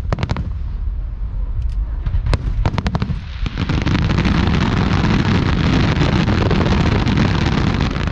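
Aerial fireworks: scattered sharp bangs over a low rumble, then from about three and a half seconds in a dense, unbroken barrage of overlapping bursts that cuts off abruptly at the end.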